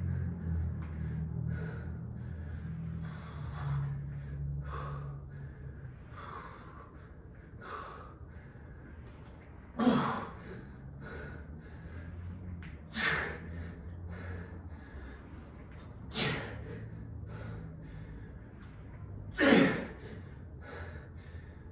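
A person breathing hard during a heavy workout, with a loud, sharp breath about every three seconds through the second half.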